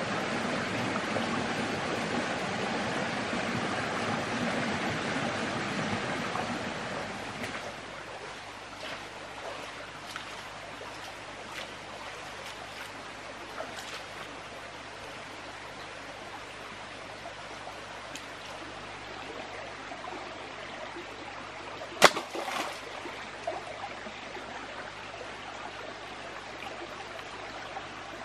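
Stream water running, louder at first and dropping to a quieter steady flow about seven seconds in. Faint clicks and taps come through it, and later a single sharp knock stands out as the loudest sound.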